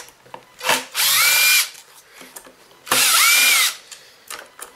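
Cordless impact driver backing out screws: a brief blip, then two runs of under a second each, its motor whining up, holding and winding back down.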